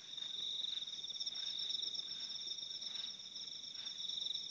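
Night-time insect chorus of crickets: high, steady trills at two pitches, each rapidly pulsing.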